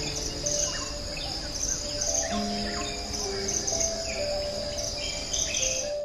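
Rainforest ambience: a steady, pulsing high insect trill with scattered short bird chirps, over soft music with long held notes.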